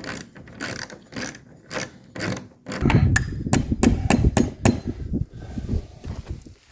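A quick, uneven run of knocks and clicks from tool work, heavier and deeper for about two seconds in the middle.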